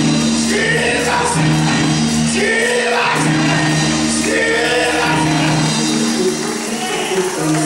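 Gospel-style singing: a man's voice in drawn-out phrases that rise and fall, about one a second, over sustained organ chords, the sung, chanted delivery of a preacher at the climax of his sermon.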